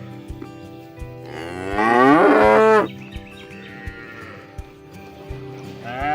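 A cow mooing: one long, loud moo about a second in, lasting about a second and a half, and another moo starting near the end.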